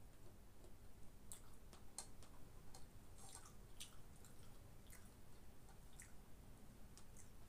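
Faint eating sounds: scattered small clicks and smacks of someone chewing and eating by hand from a plate, over a low steady hum.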